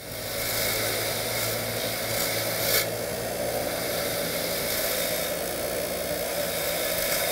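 Motor-driven wire wheel running steadily while a rusty parking brake pivot is held against it, scrubbing the rust off, with one sharper scrape about three seconds in.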